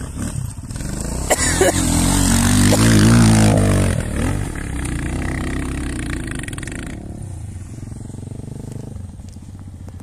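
Motorcycle engine revving hard at full throttle under load on a dirt hill climb. It rises in pitch and is loudest about two to four seconds in, then eases off and fades away after about seven seconds.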